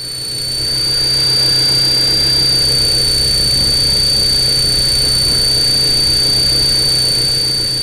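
Radio-controlled model helicopter in flight: its motor and rotors give a steady high whine over a low hum, fading in over the first second and holding level.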